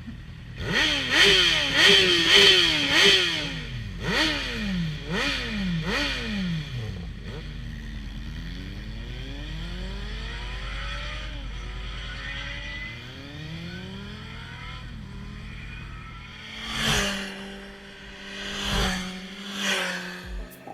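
Kawasaki Z800's inline-four engine through an aftermarket Scorpion exhaust, revved in a string of quick sharp blips, each pitch rising and dropping back. It then runs more quietly with its pitch climbing again and again, and near the end swells up loudly three times.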